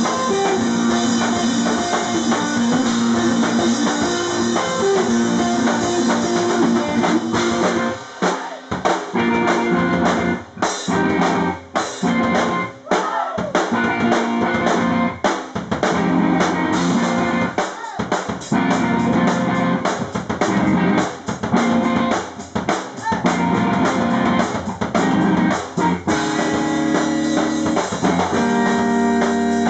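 A live rock band playing, drum kit and electric guitar. From about eight seconds in, the playing breaks into short stop-start hits with brief gaps, then runs on fully again near the end.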